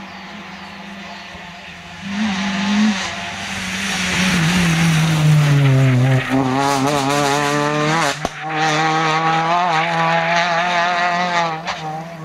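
Peugeot 206 rally car's engine at full stage pace. It gets louder about two seconds in, drops in pitch as it slows, then climbs and wavers through the gears as it pulls away down the road. A single sharp crack comes about two-thirds of the way through.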